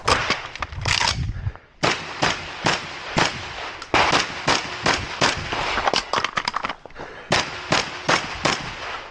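A shotgun fired rapidly in a long string of shots, about two to three a second, with brief pauses about a second and a half in and about seven seconds in: a competitor shooting an IPSC shotgun stage.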